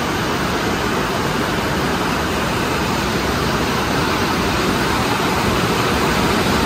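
Heavy rain pouring down, a steady hiss that grows slowly louder.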